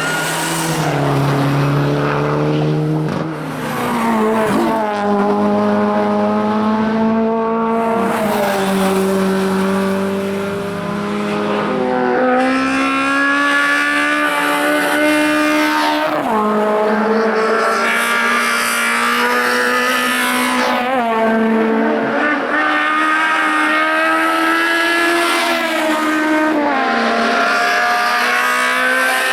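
Race car engine driven hard through the gears: its pitch climbs steadily and then drops sharply at each gear change, over and over.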